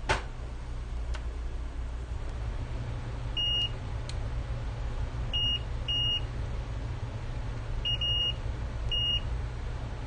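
Digital multimeter in continuity mode giving short, high beeps, about six at irregular intervals with two close together near the end, as the probes are touched to test points around the chips on a Nintendo Switch board; each beep marks a low-resistance reading, the check for shorted capacitors.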